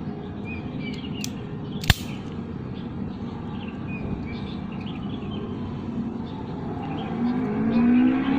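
A single sharp snip about two seconds in, from a wire stripper's cutter trimming the end of a charger cable, over steady outdoor background with faint bird chirps. A low engine hum from a passing vehicle swells near the end.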